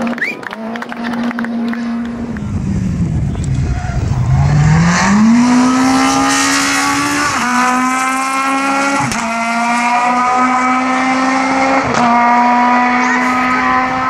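Rally car engine held at high revs, then dropping sharply as the driver lifts off about three seconds in. It revs hard again and shifts up through the gears, with short breaks in the engine note about seven, nine and twelve seconds in.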